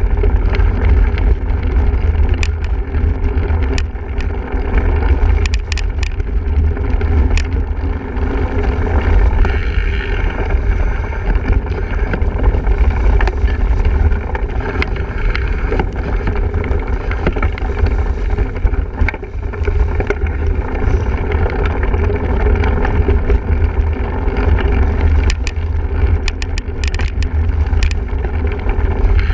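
Wind buffeting the microphone of a camera on a single-speed cyclocross bike ridden at race pace, a heavy low rumble over tyre and riding noise, with sharp rattles of the bike over bumps now and then and a cluster of them near the end.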